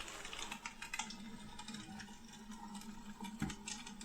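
Faint crackling of a recorded fire sound played from a phone inside a hollow plaster fireplace lamp, echoing inside the shell: soft scattered ticks over a light hiss and a low steady hum.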